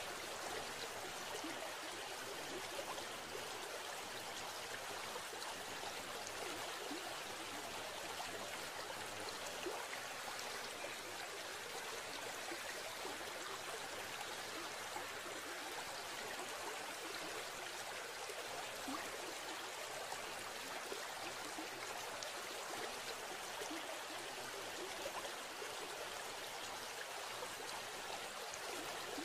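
Steady running-water sound, an even rush that neither breaks nor changes.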